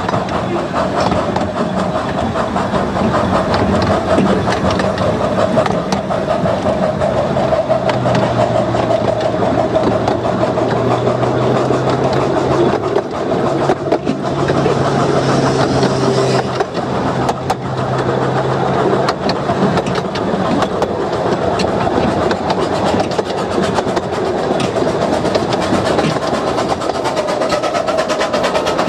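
A 15-inch gauge miniature train hauled by two vintage steam locomotives, running along the line with wheels clicking over the rail joints. A steady tone runs under the running noise, with a lower hum joining from about a quarter of the way in to two-thirds through.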